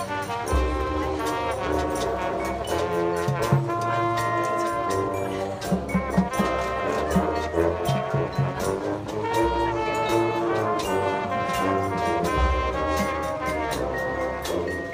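Drum and bugle corps playing its field show: the brass line holds and moves through full chords over low bass-drum hits and sharp percussion strikes.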